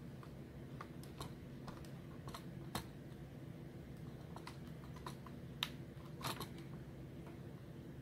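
Irregular small clicks and taps of a laptop's plastic case and circuit board being handled as the motherboard is worked loose from the chassis, with the sharpest clicks in the second half, over a faint steady low hum.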